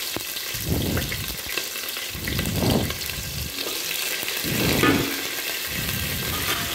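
Sliced onions and curry leaves frying in hot oil with mustard and fenugreek seeds: a steady sizzle and crackle, swelling louder three times about two seconds apart.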